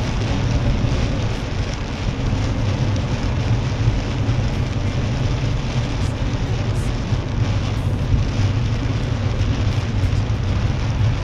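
Heavy rain falling on a moving Mercedes-Benz C-Class and its tyres running on the flooded road, heard from inside the cabin. It is a steady hiss over a low rumble, with faint ticks of drops on the windscreen.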